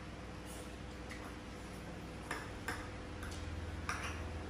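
Light, scattered clicks of chopsticks and spoons tapping porcelain bowls as people eat, about six at uneven intervals, over a steady low hum.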